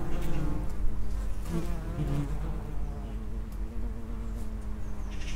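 Common wasps (Vespula vulgaris) buzzing in flight at the entrance of their underground nest. Several overlapping wing-buzzes rise and fall in pitch as the wasps fly in and out past the microphone.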